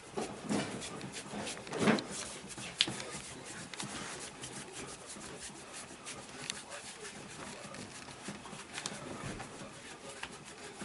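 Hands rubbing and kneading over a patient's body during massage, a steady soft rubbing, with a few short knocks and a sharp click in the first three seconds.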